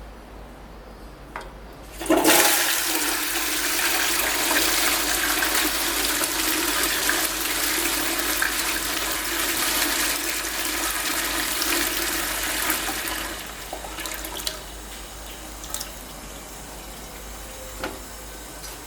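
TOTO C14RS tank toilet flushing: a sudden loud rush of water starts about two seconds in and runs for about eleven seconds. It then drops to a quieter steady water hiss with a few faint knocks.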